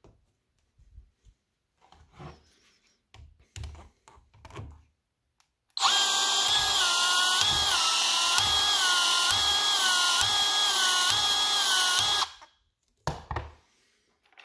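Milwaukee M12 FUEL cordless PEX expansion tool running for about six seconds, expanding the end of a half-inch PEX pipe fitted with an expansion ring: a steady motor whine whose pitch dips and recovers about once every three-quarters of a second as the head expands and turns. Before it, light knocks of the pipe and ring being handled; near the end, a couple of knocks.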